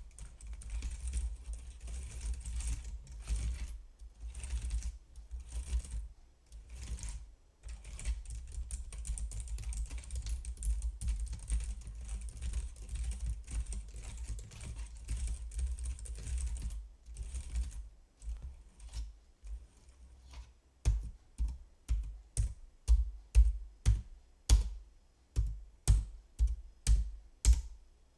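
Computer keyboard being typed on close to the microphone in quick, dense runs of key clicks. Later the typing gives way to slower, louder single key strikes, about two a second.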